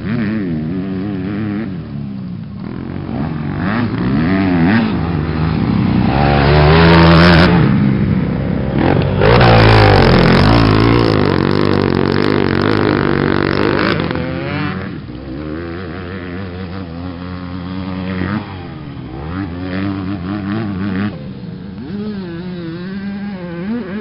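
Motocross bike engines revving up and down on a dirt track, the pitch rising and falling with each throttle change. Loudest through the middle, then quieter.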